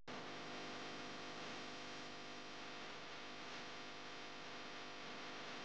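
Faint, steady hum with hiss, cutting in abruptly right at the start: background room tone.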